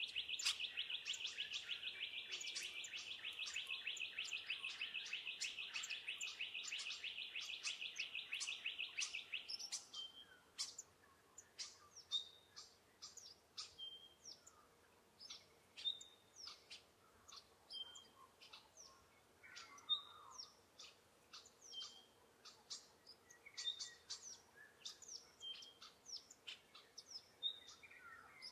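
Woodland birds calling. A loud, rapidly repeated high trill runs for about the first nine and a half seconds and stops. After it come scattered short chirps and sharp calls, with a single high note repeated every second or two.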